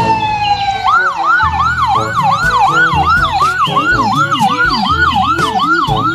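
Electronic ambulance siren: after a falling tone in the first second, a fast rising-and-falling wail repeats nearly three times a second.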